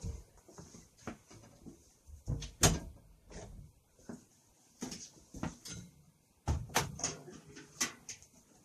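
Irregular knocks and clattering: a series of sharp bangs spaced unevenly, the loudest about two and a half seconds in and a denser cluster near the end.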